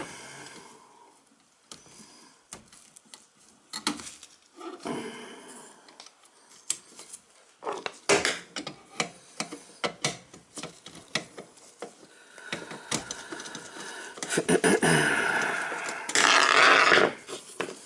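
Gloved hands working the dishwasher's junction-box wiring: scattered small clicks, knocks and rattles of wires, wire nuts and the metal box, with rubbing in between. A louder stretch of scraping and rustling comes near the end as a hand reaches in under the machine.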